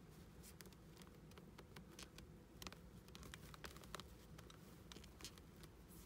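Near silence with faint, irregular clicks and light rustling from hands handling a doll and its lace dress.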